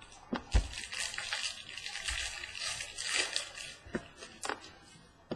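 Crinkling and rustling of a trading-card pack wrapper being handled and opened, with a few light clicks and taps from cards and plastic card holders.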